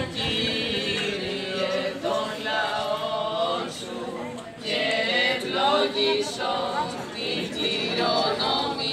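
Several voices chanting a Greek Orthodox Byzantine hymn in unison, unaccompanied, with a short break about four and a half seconds in.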